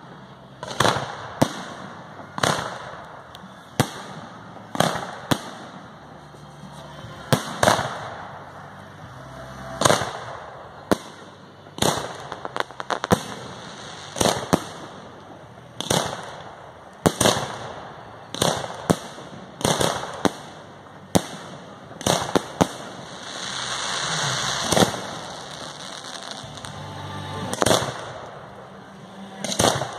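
Fireworks display: aerial shells bursting one after another, a sharp bang about every second, with a longer spell of continuous noise a little after two-thirds of the way through.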